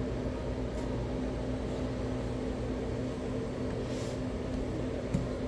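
Steady low hum of running kitchen equipment, with a couple of constant tones in it. A towel swipes across the wooden cutting board about four seconds in, and there is a single light knock near the end.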